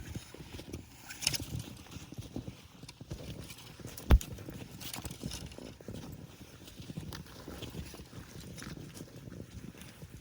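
Footsteps trudging through snow, an uneven run of low thuds, with one sharp thump about four seconds in.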